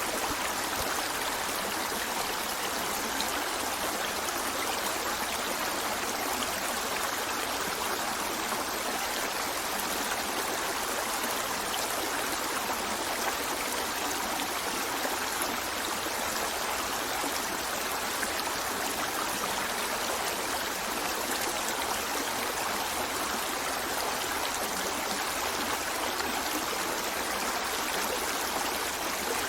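River water flowing over rocks in a steady, unbroken rush with a light trickle.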